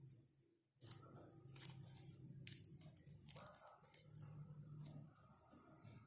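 Faint paper handling: scattered short crinkles and clicks over a low steady hum.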